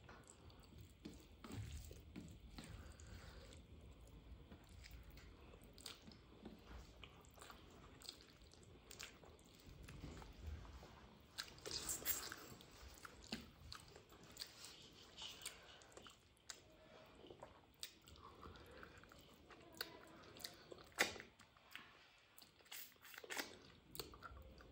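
A person chewing mouthfuls of rice and mutton curry eaten by hand: quiet wet chewing with scattered short mouth clicks and smacks.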